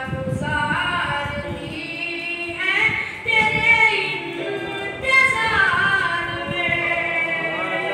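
A boy singing an unaccompanied devotional recitation into a microphone, the mournful chant of a Shia noha, in long held melodic lines with no instruments.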